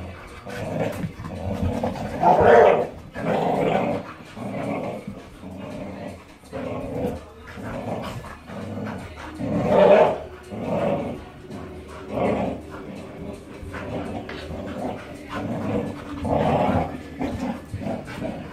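Dogs growling in play while tugging on a toy, in a long run of rough growls that rise and fall, loudest about two and a half seconds in and again about ten seconds in.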